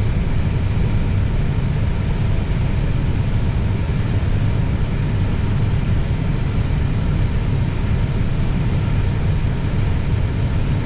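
Steady low rumble and hiss inside an Airbus A320neo cockpit as the airliner taxis in after landing, with a few faint steady tones above it.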